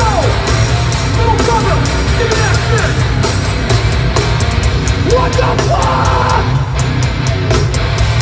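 Hardcore band playing live through a PA: loud distorted guitars, bass and pounding drums with cymbal crashes, under a shouted vocal, heard from the crowd.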